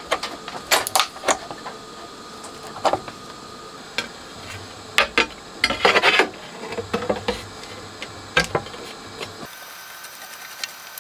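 Clicks and knocks of audio cables being pulled from a preamp's rear sockets and its metal top cover being set down and fitted onto the chassis, with a denser clatter about six seconds in.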